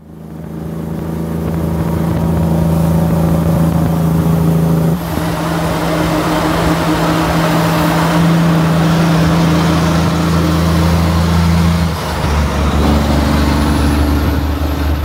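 Heavy truck's diesel engine running loud and close. Its engine note holds steady, then shifts abruptly twice, about five and about twelve seconds in.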